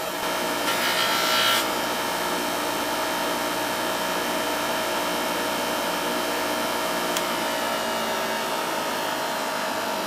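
Bench grinder with a buffing wheel running, a steady motor hum. For about the first second and a half a steel piece is held against the spinning wheel, adding a rubbing noise, and then the wheel runs free.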